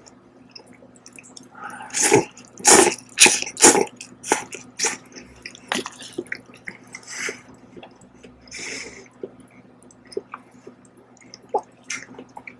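Instant noodles being slurped from a paper cup in a run of loud sucks, about two a second, then chewing, with chopsticks stirring and clicking in the cup.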